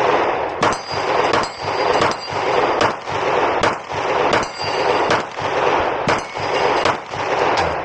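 A 9mm Glock pistol (Model 45 frame with a Glock 19 slide and barrel) fired about ten times at a steady pace, roughly one shot every three quarters of a second, each shot trailed by a long echo.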